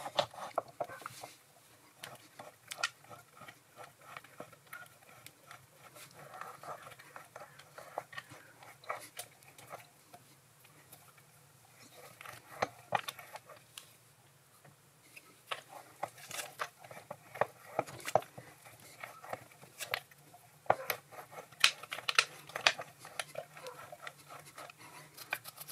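M6 split die in a tailstock die holder being turned by hand to chase the thread on a stainless steel stud: irregular small metallic clicks and scrapes, sharper and more frequent in the second half.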